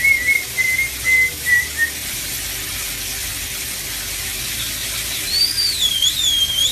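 A parrot whistling: a few short chirps at the start, then a longer warbling whistle that dips and rises near the end, over a steady hiss.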